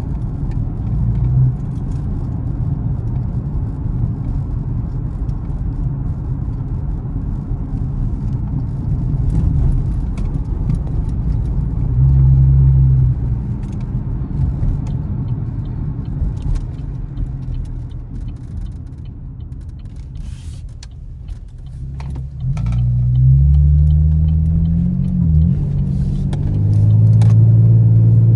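Chevrolet Camaro's engine and exhaust rumbling low while cruising, with road noise. About halfway through, the engine briefly swells. Near the end it pulls up through rising notes and settles into a steady drone.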